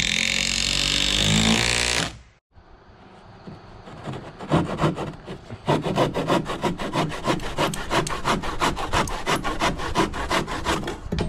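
A cordless drill driving a screw, its motor whining up in pitch for about two seconds before it stops. After a short pause, a handsaw cuts through wood in quick, regular back-and-forth strokes.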